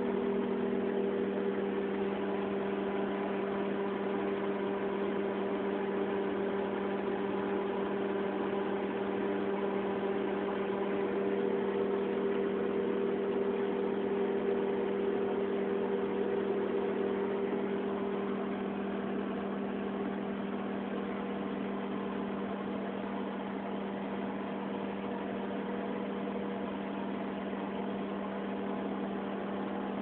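Daewoo microwave oven running, a steady electrical hum that eases slightly about two-thirds of the way through.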